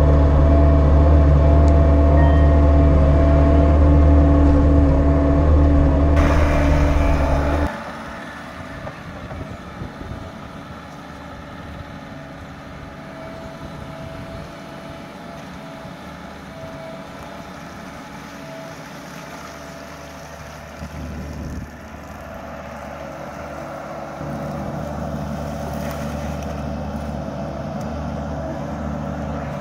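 Bobcat E42 mini excavator's diesel engine running loud and steady, heard from inside the cab while the bucket digs. A few seconds in it drops away to the same machine heard from outside, quieter, growing somewhat louder near the end.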